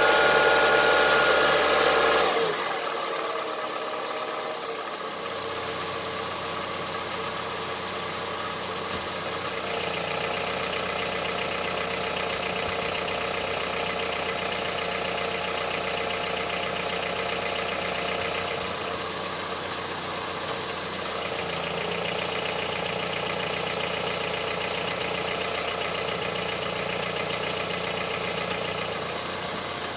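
Honda CR-V III's 2.4-litre four-cylinder petrol engine running at higher revs for about two seconds, then dropping to a steady idle. It has a diesel-like knock, which the owner is recording as a fault.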